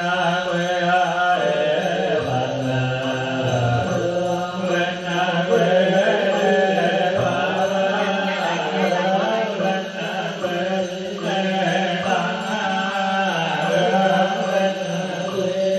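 Buddhist liturgical chanting for the dead: voices singing a sutra chant that rises and falls in pitch, running on without a break.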